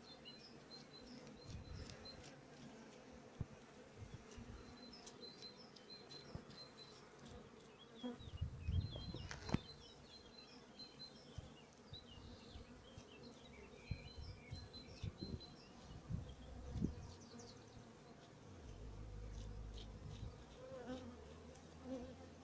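Honeybees buzzing in a low steady hum on a brood frame lifted from the hive, with small clicks and scraping as a hive tool cuts open capped drone brood cells.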